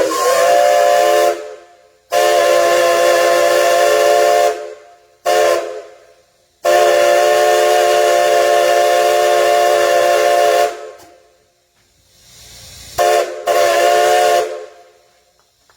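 Nickel Plate Road 587's steam whistle, the chime whistle of a 2-8-2 steam locomotive, sounding a chord of several steady tones. It is blown as a series of blasts: two long ones, a short one, a long one held about four seconds, then two short blasts near the end.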